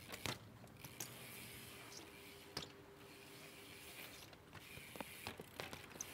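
BMX bike ridden on concrete: scattered clicks and knocks from the bike and its tyres on the ramps, with a sharper knock just after the start and another about two and a half seconds in.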